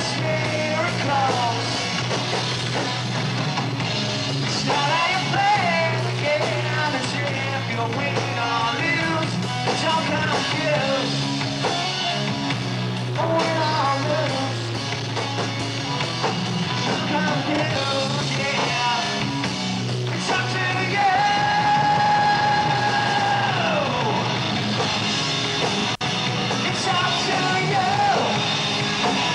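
Metal cover band playing live: electric guitars and drums under a male singer shouting and singing into a handheld mic. About three-quarters of the way in, a long held note slides down.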